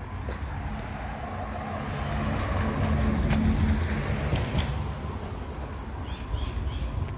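A car passing by on the street, its engine and tyre noise swelling to a peak about halfway through and then fading.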